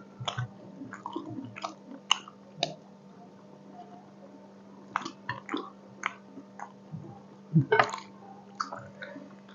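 Close-up mouth sounds of a person eating katla fish curry with rice: wet smacks and chewing clicks in scattered bunches, over a faint steady hum.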